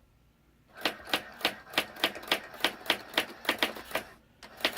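Brother AX-350 electronic daisy-wheel typewriter printing letter by letter as the keys are typed, a run of sharp strikes about three to four a second that starts about a second in, with a brief pause near the end.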